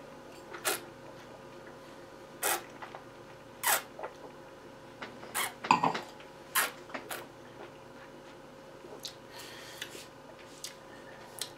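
A person tasting red wine: a string of about eight short, sharp slurps and sucks as the wine is drawn in and worked around the mouth.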